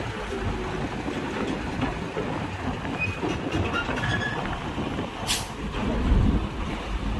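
Loaded cargo truck driving up a ferry's steel bow ramp, its engine and the ramp rumbling steadily. A short high hiss comes about five seconds in.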